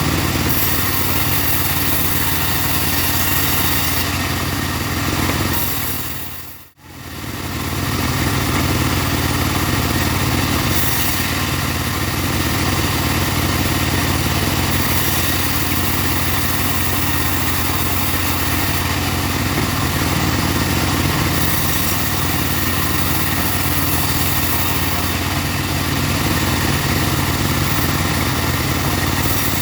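Engine-driven mobile sawmill running steadily, its engine holding an even note. The sound drops out briefly about seven seconds in and then resumes.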